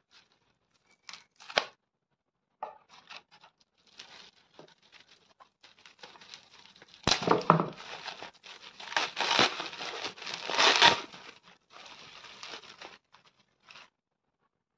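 Plastic bubble wrap crinkling and rustling as it is pulled off a metal perfume tin by hand. It starts with a few scattered crackles and thickens into steady crinkling, loudest in the middle, before dying away near the end.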